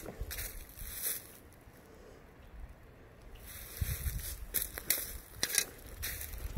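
Footsteps crunching and rustling through dry fallen leaves. They pause for about two seconds after the first second, then start again.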